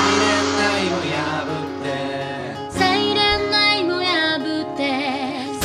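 Pop-rock band playing the song, with female vocals.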